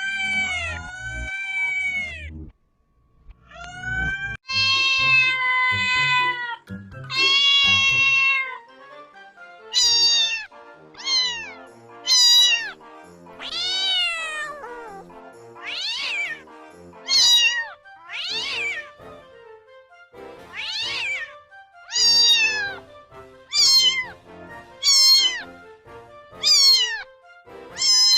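Domestic cat meowing over and over: a few long, drawn-out meows first, then a steady run of short meows, each rising and falling in pitch, about every second and a half.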